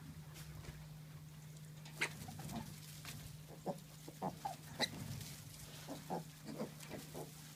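Young micro piglets giving short squeaks and grunts, a dozen or so brief calls starting about two seconds in, over a steady low hum.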